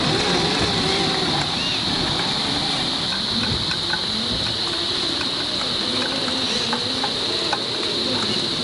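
Steady, high-pitched insect chorus buzzing throughout. Under it, the SCX10 III RC crawler's 35-turn brushed electric motor and gears whine faintly, rising and falling in pitch with the throttle as the truck crawls over rocks.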